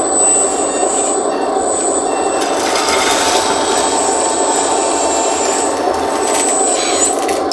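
A 1:14 scale RC hydraulic skid steer loader running: a steady whirr of its small electric motors and hydraulic pump, with a thin high whine that comes and goes. A rougher, hissier noise swells around three seconds in.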